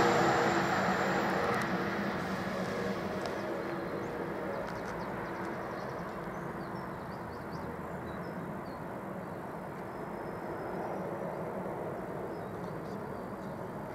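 London Northwestern Railway Class 350 Desiro electric multiple unit running away along the main line, its sound fading steadily over the first five or six seconds into a low, even background.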